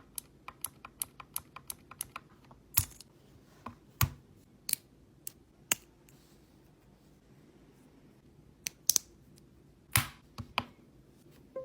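Key presses on a GK61 mechanical keyboard with optical blue switches, each a sharp click: a quick run of keystrokes for the first two seconds, then scattered single, louder presses with a pause of a couple of seconds in the middle.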